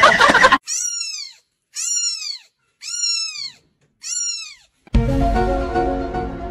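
Newborn kitten mewing: four high, thin cries about a second apart, each rising and then falling in pitch. Music comes in near the end.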